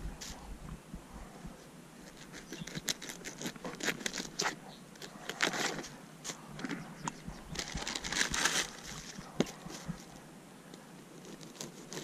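Plastic bags rustling and crinkling in irregular bursts as hands handle them, with a few sharp clicks.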